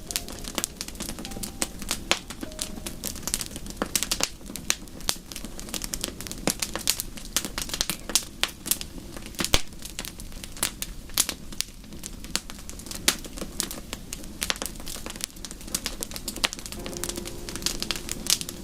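Wood fire crackling in a fireplace: irregular sharp snaps and pops, several a second, over a steady low rumble.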